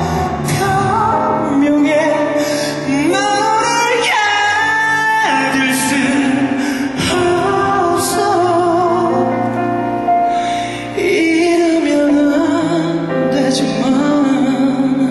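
A man singing a Korean pop ballad live into a microphone over band accompaniment, with long held notes that waver with vibrato and a sweeping rise in pitch about three seconds in.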